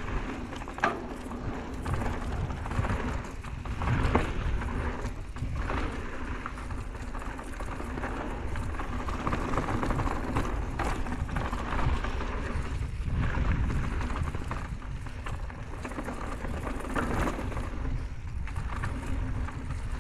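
Mountain bike riding down a dirt trail: tyres rolling on loose dirt with the bike rattling over bumps, a few sharp knocks, and wind rushing over the camera microphone.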